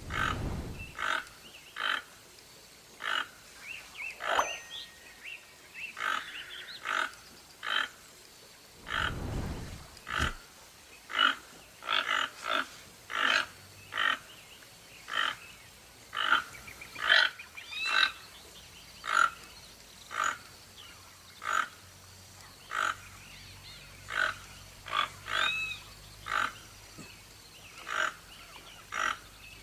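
An animal calling in short, repeated notes, about one to two a second. There is a low rumble near the start and again about nine seconds in.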